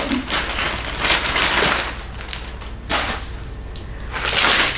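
Packaging handled by hand: a cardboard box and its wrapping rustling in several short bursts, loudest near the end.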